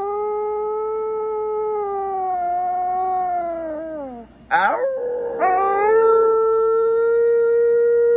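A Siberian husky and a person howling together: two long howls, the first held steady and then falling in pitch about four seconds in, the second starting about half a second later and held steadily.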